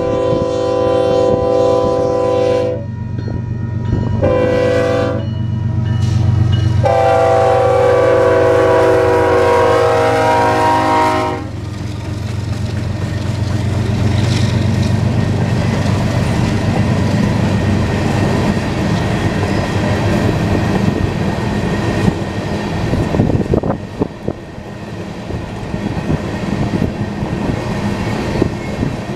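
Union Pacific diesel freight locomotive's multi-tone air horn blowing for a grade crossing: a long blast, a short one, then a long one that stops about eleven seconds in. After that the locomotives' diesel engines run past, followed by a long string of coal cars rolling by with steady wheel clatter and clicks.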